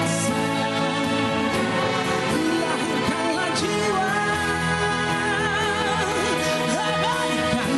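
A band's song playing, with a melody note held and wavering about halfway through.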